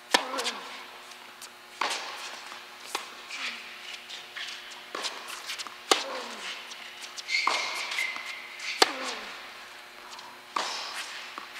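A tennis rally on an indoor hard court: sharp cracks of the ball off the racket strings and off the court, one every second or so, echoing in the hall, with a high squeak about halfway through.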